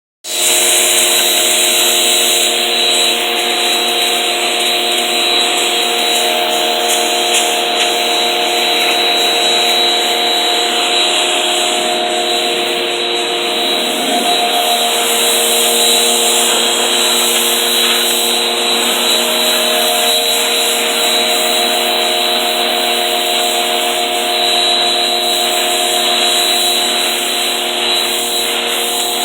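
Pressure washer running steadily, its motor and pump humming under the loud hiss of the water spray.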